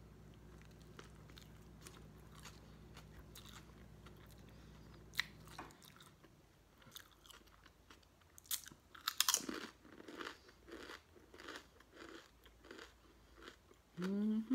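Close-up eating sounds: moist chewing of a sandwich. About eight seconds in come a few loud, crisp crunches as a potato chip is bitten and chewed.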